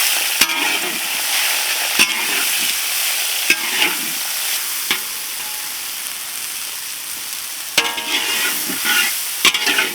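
Food sizzling in hot oil in a pan, with a metal spatula knocking and scraping against the pan as it is stirred. There are single knocks every second or so at first, then a busier spell of scraping near the end.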